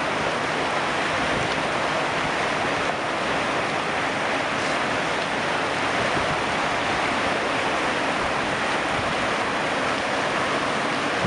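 Steady rush of choppy, fast-moving sea water, with wind on the microphone.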